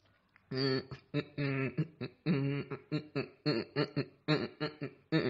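A man's voice singing or vocalising in short, clipped syllables in a quick even rhythm, about three a second, starting about half a second in.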